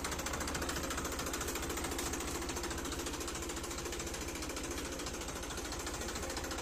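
Massey Ferguson 241 DI tractor's three-cylinder diesel engine running, a steady, fast, even knocking beat.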